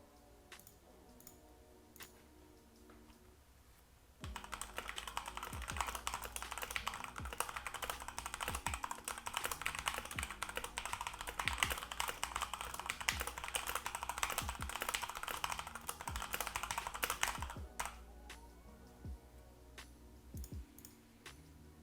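Foam-modded HyperX Alloy Origins Core mechanical keyboard being typed on. A few scattered keystrokes come first, then fast continuous typing from about four seconds in until about three quarters through, then occasional single key presses again.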